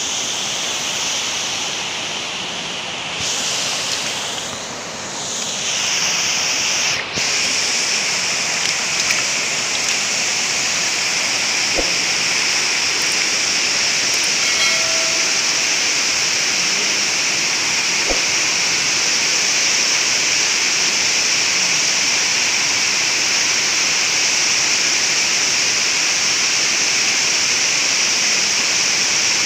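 Water pouring over a weir into the pool below, a steady loud rushing hiss.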